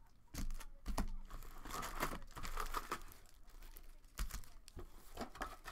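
Hands crinkling and tearing open basketball card pack wrappers and handling the cards, in irregular crackly bursts with a few sharp clicks.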